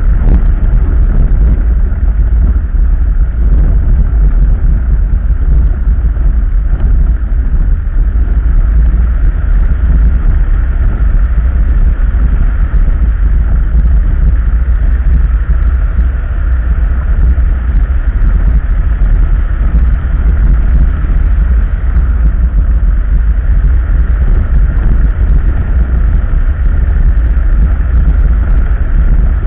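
Vehicle driving along a gravel road: a steady, loud low rumble of engine and tyre noise.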